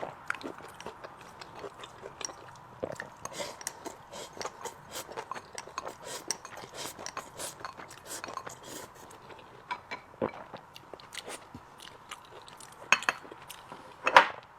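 Close-miked eating: chewing and crunching of food, with frequent small clicks of utensils against a dish, and two louder clinks near the end.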